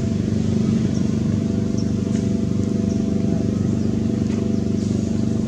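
A steady, unchanging engine drone with a low hum, like a motor running at a constant speed.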